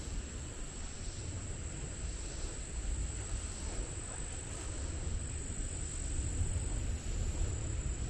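A steady high-pitched insect chorus from the summer meadow and woods, over a constant low rumble.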